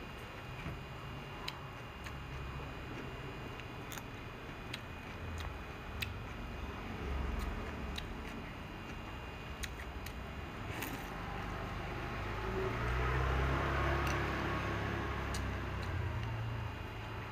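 Close-up eating sounds: chewing and slurping of rice noodles, with scattered sharp clicks of chopsticks against the bowl. The chewing grows louder for a few seconds past the middle.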